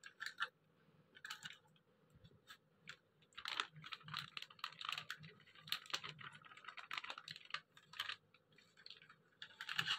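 Faint taps and plastic rustling as a packet of cornflour is handled and tipped over raw chicken cubes in a plastic tub. A few scattered clicks come first, then a denser stretch of rustling and tapping from about three and a half seconds in until near the end.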